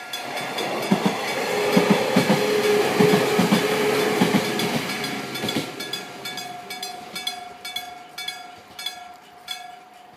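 Japanese level-crossing warning bell ringing in a rapid, steady repeat. For about the first five and a half seconds a Sangi Railway train passes over the crossing, its wheels clattering over the rail joints and drowning the bell. Once the train has gone the bell is heard plainly again, growing fainter toward the end.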